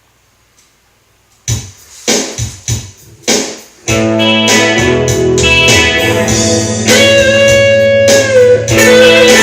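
Electric guitar, an Ibanez RGT320Z neck-through, playing over a soft-rock backing track in A major. After about a second and a half of near silence come a few separate hits. About four seconds in, the full track starts, with lead lines on top and a held, wavering note near the end.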